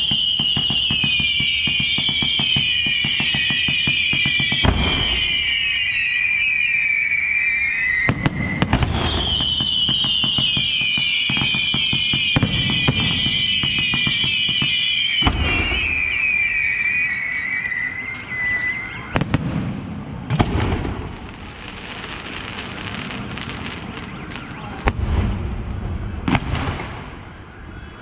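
Fireworks going off: two long high-pitched whistles that slide slowly downward, over dense rapid crackling and several heavy booms. In the last third the whistling stops and scattered crackles and bangs carry on.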